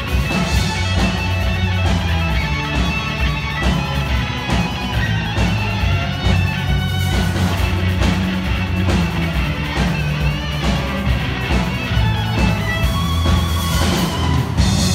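Live string orchestra playing a rock arrangement together with an amplified electric guitar, with a standing solo violinist bowing in front; the music is loud and continuous.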